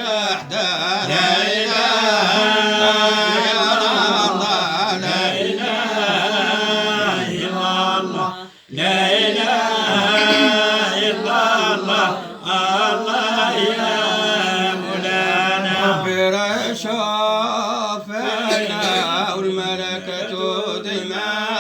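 A man chanting Arabic religious verses unaccompanied, in long ornamented melismatic phrases over a steady held low note, pausing briefly for breath a little under halfway through.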